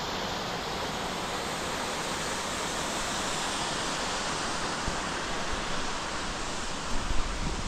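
Steady rushing roar of an 80-foot waterfall, with a few low wind thumps on the microphone near the end.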